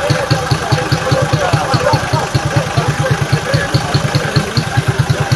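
A vehicle engine idling with a steady low throb of about eight beats a second, with faint voices of people in the background.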